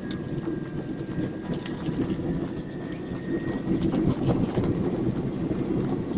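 Car driving slowly along a dirt road, heard from inside the cabin: steady engine and road noise with a few small knocks.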